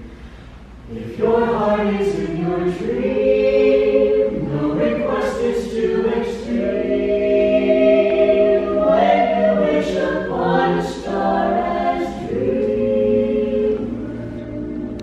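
A cappella vocal ensemble of men and women singing in close harmony, with no instruments. After a brief near pause, the voices come in together about a second in and hold long chords, easing off a little near the end.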